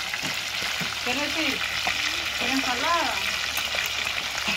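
Whole fish frying in hot oil in a cast-iron skillet over a wood fire: a steady sizzle.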